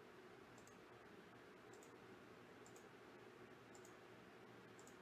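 Faint clicks of a computer mouse button, about one a second, each a quick pair of ticks, over otherwise near-silent room tone.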